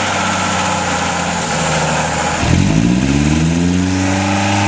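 Off-road trial truck's diesel engine running steadily, then revved hard about halfway through, the pitch rising quickly and holding high as it labours through deep mud.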